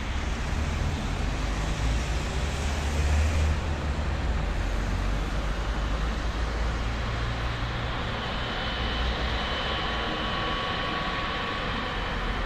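Steady road traffic noise from cars and vans passing on a multi-lane road, heavier and lower for the first few seconds. From about eight seconds in, a thin high steady whine joins it: the jet engines of an airliner spooling up at the start of its takeoff run.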